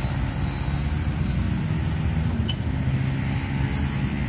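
Small motor scooter engine idling steadily.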